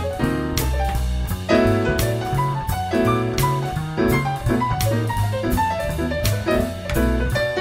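Jazzy background music: piano over a moving bass line, with steady drum strokes.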